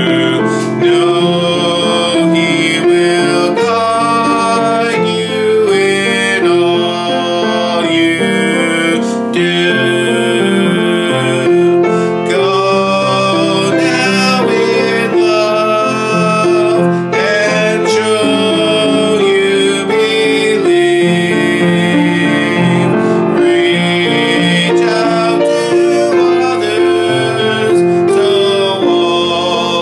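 A sung benediction: voices singing a gentle hymn-like song with piano accompaniment.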